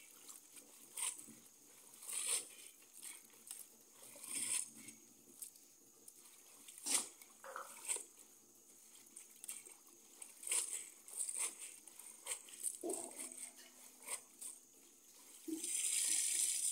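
Hands swishing and lifting akeyo leaves in water in a plastic basin: soft, irregular splashes and leaf rustles about once a second. Near the end, a steady pour of water as the basin is tipped out.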